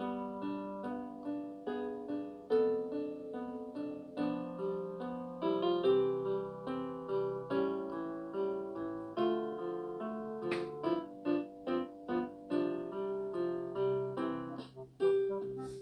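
Background music: plucked guitar and piano playing a melody of quick, evenly spaced notes.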